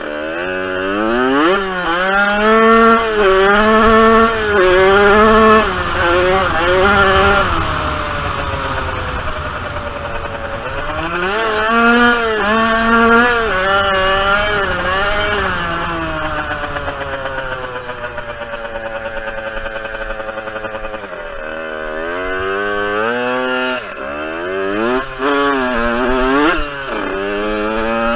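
Kawasaki KX65's small two-stroke single-cylinder engine revving hard under way. Its pitch climbs and drops over and over through the gears in the first several seconds, then falls slowly over a long stretch in the middle as the bike slows, and rises again near the end.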